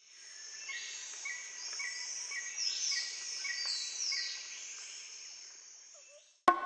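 Nature ambience of birds calling and insects chirping, with a short call repeating about twice a second and a few falling calls, fading in and then fading out. Just before the end, percussive music with sharp wooden knocks begins.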